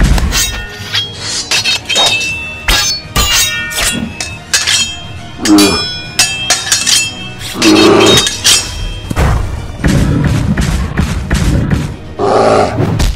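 Background music overlaid with a rapid series of sound-effect thuds and crashes, and short animal-call sound effects about five and a half, eight and twelve and a half seconds in.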